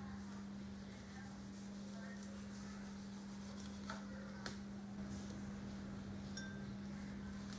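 Knife cutting through a lime onto a wooden chopping board: two light knocks about half a second apart near the middle, over a steady low hum.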